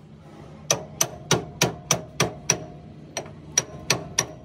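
Hammer blows on steel at the pinion flange of a Hino truck's rear differential: sharp, ringing metal strikes about three a second, seven in a row, a short pause, then four more.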